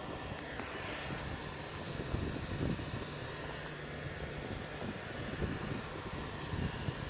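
Power substation transformer humming: a steady low electrical drone made of several level tones.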